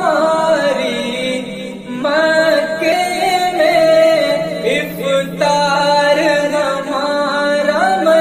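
Devotional vocal music (a nasheed) for Ramadan: a voice sings a slow melody with long held, gliding notes over a steady low drone, with a brief pause about two seconds in.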